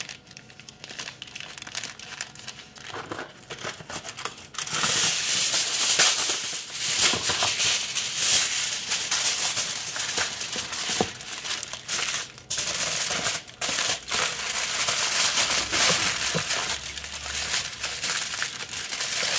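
Parchment paper rustling softly as a sausage is rolled in it, then, from about four and a half seconds in, aluminum foil crinkling loudly as a sheet is pulled out and wrapped around the parchment roll.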